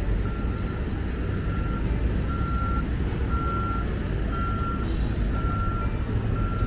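Reversing alarm of a construction vehicle beeping about once a second, each beep about half a second long, over the low rumble of its engine running.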